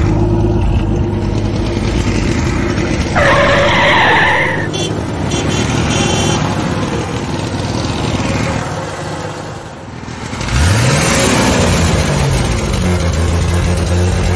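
Motor vehicle engine sound effects running steadily. About three seconds in there is a short tyre screech lasting over a second. After a brief lull, an engine revs up and falls away, then settles back to a steady run near the end.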